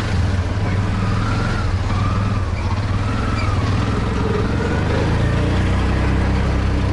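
Car engine and road noise heard from inside the cabin: a steady low rumble.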